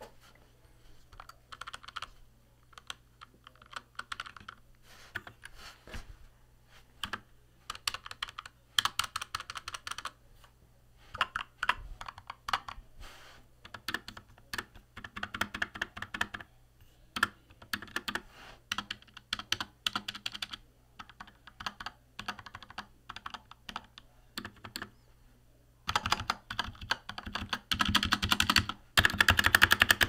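Typing test on a Keychron K4v2 mechanical keyboard rebuilt with lubed Gateron Milky Yellow linear switches and tape-and-polyfill sound dampening: keystrokes come in short runs with brief pauses. About 26 seconds in, the typing grows faster and louder.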